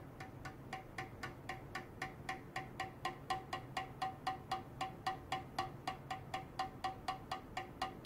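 Stainless steel tray with an ultrasonic probe clamped to it, giving short metallic pings at a strictly even rate of about four a second. They start suddenly and grow louder over the first few seconds.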